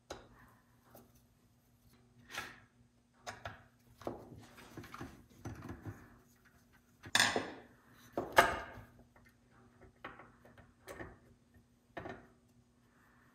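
Scattered small clicks, taps and scrapes of a screwdriver and metal screws as the old ignition module is worked loose on a Stihl 056AV chainsaw, with two louder knocks a little past halfway.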